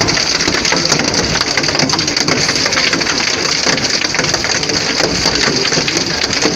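Heavy hail pelting down, a dense, steady clatter of countless small impacts mixed with the hiss of rain.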